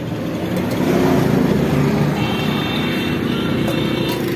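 An engine running steadily, growing louder about a second in.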